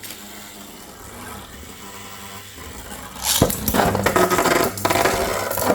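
Two spinning Beyblades, Phantom Orion and a full-metal Lightning L Drago, whirring steadily after launch. From about three seconds in they clash, with a rapid, loud rattle of metal tops striking each other.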